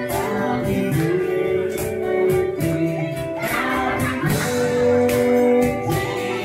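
Live acoustic band playing: a man singing into a microphone over two strummed acoustic guitars, with a cajón keeping the beat.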